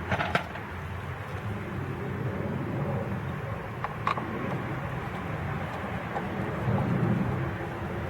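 Steady outdoor background rumble with a few light clicks near the start and about four seconds in; the low rumble swells briefly near the end.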